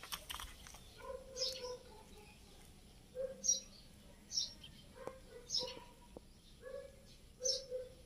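Small birds chirping: about five short, high chirps a second or two apart.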